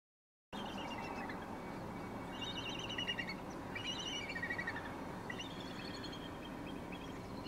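Bald eagles calling: repeated series of high, rapid chittering notes, several birds overlapping, starting about half a second in over a steady background hiss.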